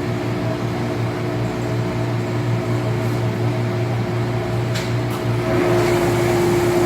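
Steady hum of factory machinery running, with several held tones over a constant noise. There are two short clicks near five seconds in, and one of the tones gets louder at about five and a half seconds.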